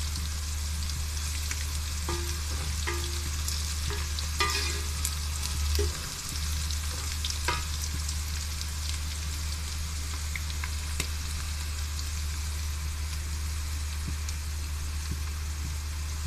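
Sliced onions frying in oil in an aluminium pot: a steady sizzle as they turn golden brown, with a few light knocks. A steady low hum runs underneath and drops out briefly about six seconds in.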